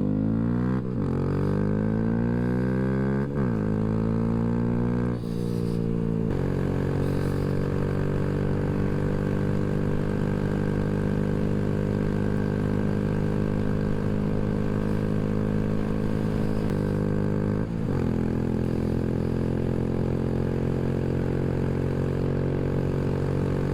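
2023 Honda Grom's 125 cc single-cylinder engine, fitted with a ram air intake, pulling under acceleration. Its pitch climbs and falls back at two upshifts in the first five seconds or so, then it holds a steady cruise, with one brief dip in pitch later on.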